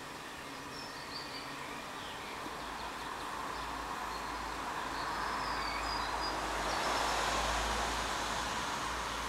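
Outdoor background noise with a deep rumble under it, swelling to its loudest about seven seconds in and then easing, with a few faint, short, high bird chirps over it.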